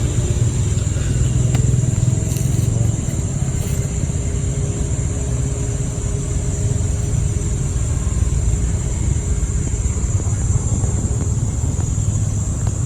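A steady low rumble like a running motor vehicle engine, with a thin, steady high-pitched tone above it.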